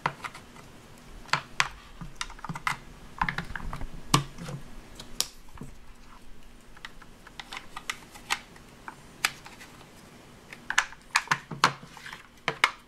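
Irregular clicks and taps of hard plastic toy parts: the ears are pressed into place on a Play-Doh dentist playset's plastic patient head, and the set is handled. The clicks come in quick clusters, the densest near the end.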